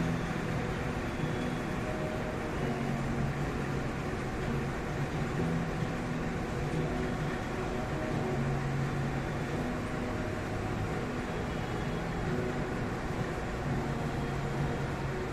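Steady indoor room hum and hiss, with faint low tones that come and go.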